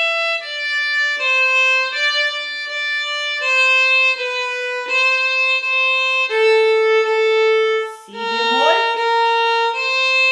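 Solo violin played with the bow, a slow melody of held notes changing pitch about once a second, with one longer held note a little past halfway.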